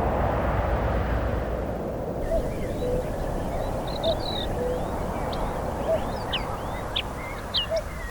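A car fading away after passing, leaving a low rumble, while birds call: many short high chirps and whistles, with a short lower note repeated about every second.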